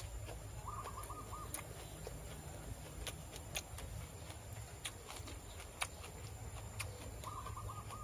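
A bird calling in the background, a short wavering note about a second in and again near the end, with faint scattered clicks in between.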